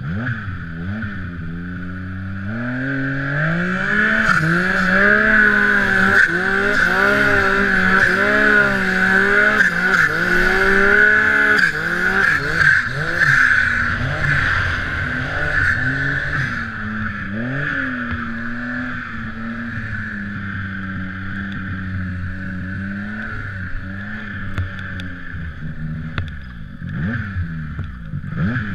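Turbocharged Yamaha SR Viper M-TX snowmobile's three-cylinder four-stroke engine under way in deep snow, revving up hard a couple of seconds in and held high with the pitch wavering, then easing off around halfway to a steadier lower pitch.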